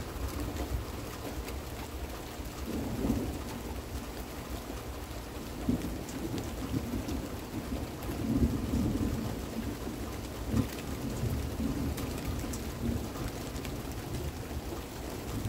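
Steady rain falling during a thunderstorm, with thunder rumbling in several swells; the loudest rumble comes about eight to nine seconds in.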